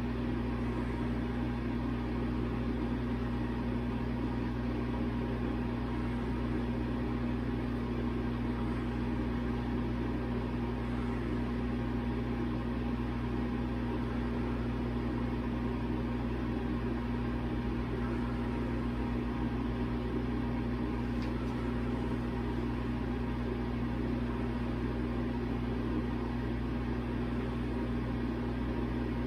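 A steady machine hum with a constant low tone over an even noise.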